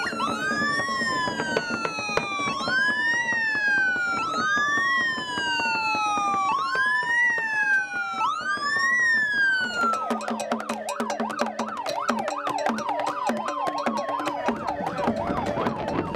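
Vehicle siren wailing: each cycle rises quickly and falls slowly, about every two seconds. About ten seconds in, the sound changes to a fast warble, with a slower wail underneath and rapid clicking.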